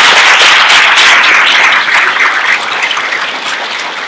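Audience applauding, loud at first and dying down gradually after about two seconds.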